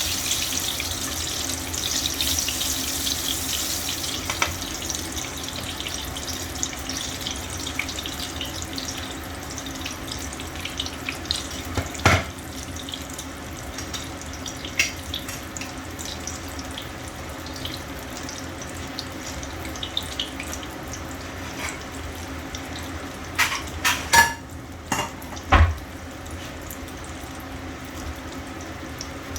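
Kitchen tap running steadily into a sink, with a sharp knock midway and a few clattering knocks near the end.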